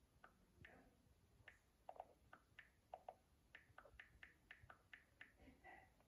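Near silence with faint, short clicks and taps, scattered at first and then coming about four a second in the second half.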